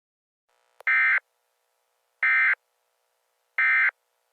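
Emergency Alert System end-of-message code: three identical short bursts of SAME digital data tones, each about a third of a second long and spaced about a second and a half apart, preceded by a brief click. The three bursts signal the end of the alert message.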